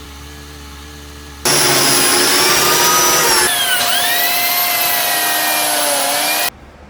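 A woodworking power tool running loud for about five seconds, its whine dipping in pitch and recovering partway through as if under load, then stopping abruptly. A quieter, steady motor hum comes before it.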